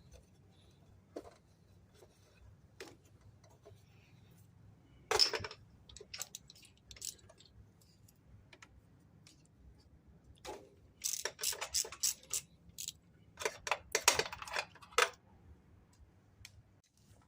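Ratchet wrench clicking in short runs and metal tools clinking while a spark plug is taken out with a 5/8 spark plug socket.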